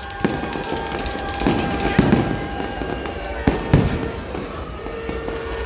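Fireworks going off: about five separate bangs with some crackling, the loudest pair about three and a half seconds in.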